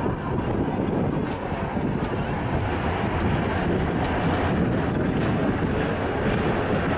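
Tram running along its rails, heard from inside the car: a steady rumble of wheels and running gear.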